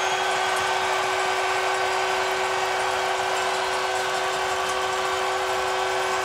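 Large arena crowd cheering in a steady, unbroken roar at a championship win, with a constant steady tone held underneath.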